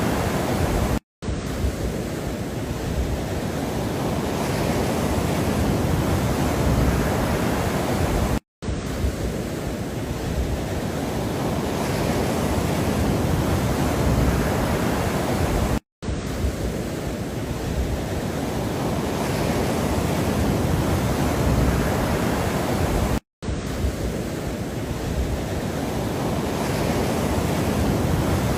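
A steady rushing noise, heaviest in the low end, played as a loop. It cuts out for a split second four times, about every seven and a half seconds, and swells gently again after each gap.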